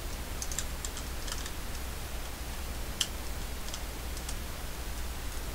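Light clicks and taps of hard plastic parts on a Robots in Disguise Ultra Magnus Transformers figure as they are handled and fitted together: a scatter of small, irregular clicks, the sharpest about three seconds in, over a steady low hum.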